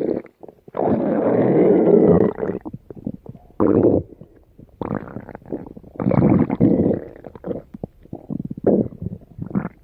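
Stomach growling and gurgling in a string of separate rumbles. The first, about a second in, is the longest at nearly two seconds; six or so shorter gurgles follow at irregular gaps.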